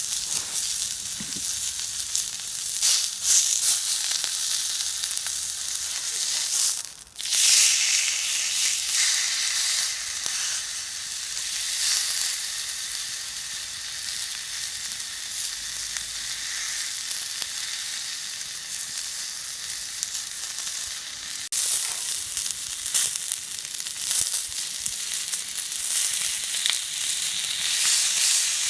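Food sizzling on a hot iron griddle plate over a campfire, a dense steady hiss with a short break about seven seconds in.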